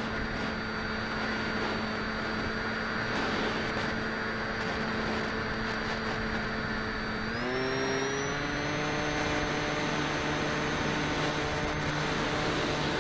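Skywalker 1900 RC plane's electric motor and propeller, heard from the onboard camera as a steady whine over a rush of air. About seven seconds in the throttle goes up and the pitch rises, settling on a higher steady tone.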